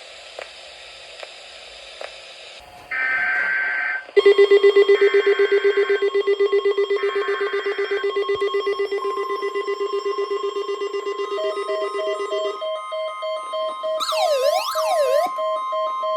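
Several emergency alert signals overlap. There are three one-second bursts of screeching data-header tones about a second apart, and under them a loud, fast-pulsing buzzing alarm tone starts about four seconds in. From about nine seconds a steady weather-radio warning tone sounds, joined by repeating beeps and a brief siren-like warble that sweeps up and down near the end.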